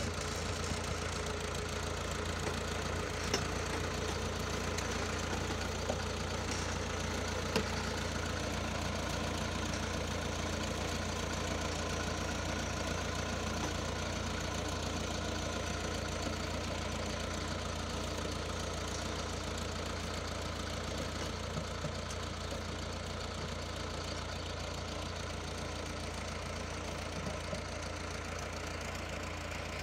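Farm tractor's diesel engine running steadily under load, pulling a sugarcane planter through the soil, with a few brief clicks in the first several seconds.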